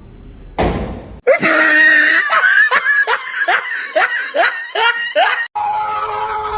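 A burst of high-pitched laughter: a run of quick, falling 'ha' pulses lasting about four seconds, after a short rush of noise.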